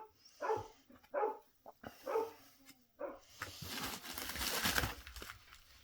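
A dog gives several short yips in quick succession. They are followed by a couple of seconds of crinkling, rustling packaging.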